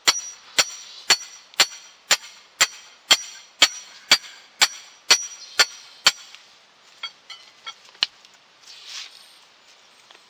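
Metal loom stake being driven into the ground by repeated strikes, metal on metal with a short ringing tone, about two blows a second. The blows stop about six seconds in, followed by a few lighter taps.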